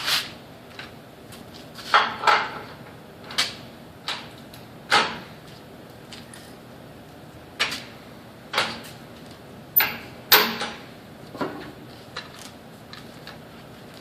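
Irregular sharp knocks and clacks of hard tools being handled, about a dozen over the stretch, with gaps of one to three seconds between them.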